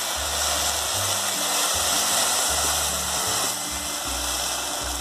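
Rice frying in a pot on a portable gas stove, a steady loud sizzle. Near the end, water is poured into the hot pot.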